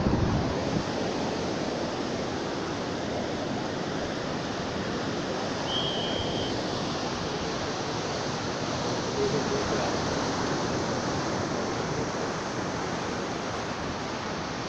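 Sea surf breaking and washing on the beach, a steady even rush. About six seconds in, a brief high tone, like a whistle, sounds over it.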